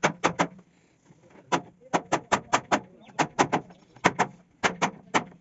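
Hammer blows on a solid wood door frame, sharp knocks in quick runs of two to five, about five a second, with short pauses between runs.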